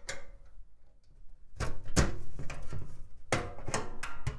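Sheet-metal knocks and scrapes from the steel motherboard tray of a computer case being worked loose and slid out: a single sharp knock about two seconds in and several more near the end.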